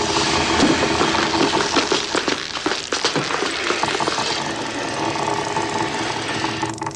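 Heavy wooden box grinding and rattling as it scrapes across the bare platform, over a steady low hum. The grinding is strongest in the first few seconds, then eases.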